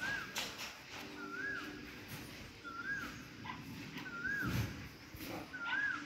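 An animal's short, high whistled call, rising then falling, repeated at an even pace about every second and a half, five times. A low rumble comes about four and a half seconds in.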